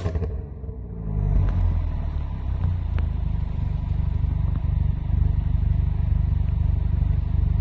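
Alfa Romeo Giulietta QV's turbocharged 1750 four-cylinder, remapped for overrun burble and pops, gives a last sharp crack from the exhaust as the revs drop away. About a second in it settles into idle with a steady low rumble.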